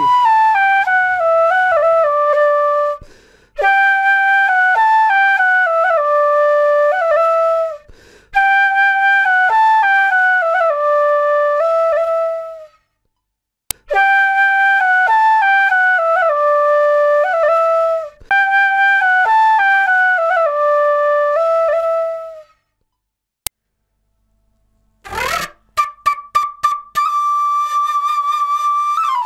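Background music: a slow flute melody played in repeated phrases with short pauses between them. Near the end comes a quick run of clicks and a held note.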